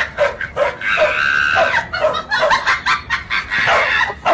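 Dog yapping in a quick run of short, high calls, about three a second, with a drawn-out high squeal about a second in.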